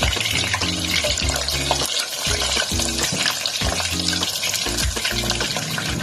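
Food frying in hot fat in a pan, a steady dense sizzle, with background music playing under it.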